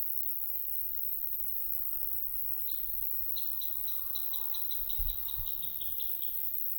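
A songbird gives a short lead note, then a run of about a dozen quick, evenly spaced high chirps lasting about three seconds. Wind buffets the microphone throughout as a low rumble, with a brief thump about halfway through.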